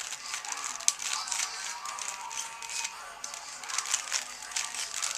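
3x3 Rubik's Cube being turned quickly by hand, its plastic layers clicking and rattling in a fast, irregular stream.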